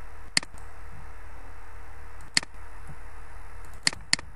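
Computer mouse clicks: one about half a second in, one near the middle and a quick pair near the end, over steady hiss and hum from the recording.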